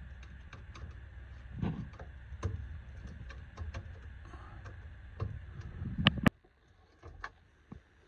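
Flat-blade screwdriver turning stiff brass isolation valves under a combi boiler, with scattered clicks and metal taps over a low handling rumble. The rumble stops abruptly after about six seconds, leaving a few faint ticks.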